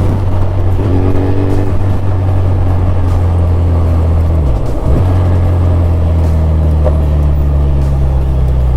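Suzuki Hayabusa's 1340 cc inline-four engine running steadily under way, heard from the rider's position over rushing wind. The engine note dips briefly about four and a half seconds in, then steadies again.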